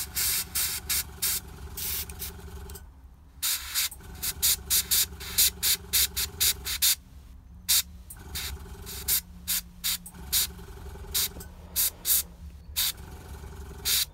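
Gravity-feed airbrush spraying paint in many short bursts, several a second in clusters, as lighter tones are built up for non-metallic metal highlights. A low steady hum runs underneath and drops out a few times.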